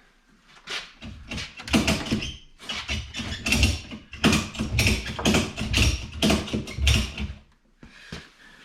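Irregular metal knocks, clunks and scraping from about a second in until near the end, as a snowmobile's rear suspension (skid frame) is worked and lifted into place with a jack.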